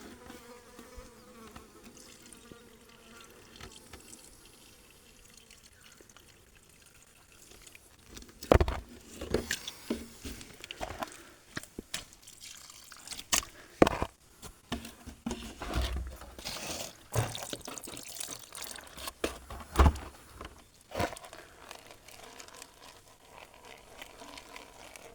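Gold pan being worked in muddy creek water: after a quieter start, irregular sloshing and splashing from about eight seconds in as the pan is swirled and dipped.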